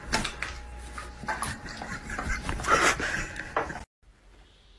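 A dog making soft whining noises while it waits for a treat, among scattered clicks and shuffling. The sound stops abruptly about four seconds in, leaving near silence.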